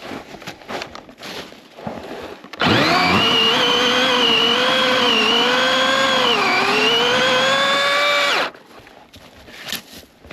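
Master Force 80 V MAX battery chainsaw running at full speed for about six seconds. It starts abruptly, holds a steady high whine that wavers and sags briefly once, then cuts off suddenly. Rustling and footsteps are heard before and after it.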